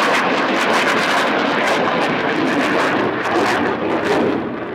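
Aircraft flying past at an airshow: a loud, rushing engine roar with no clear pitch. It cuts off abruptly near the end.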